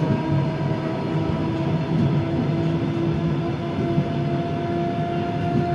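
A train running, heard from on board: a steady rumble with a constant hum, and a second, higher hum coming in about halfway through.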